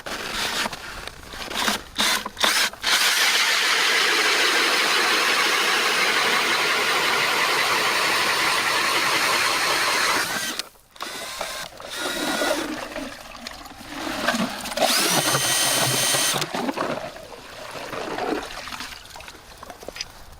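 Power ice auger boring a hole through lake ice, with a steady grinding for several seconds. It stops briefly, then runs again with a rising whine before cutting off.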